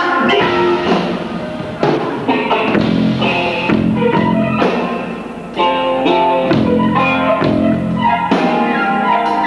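Live rock band playing: electric guitar over a drum kit. The band eases off briefly about halfway through, then comes back in loud.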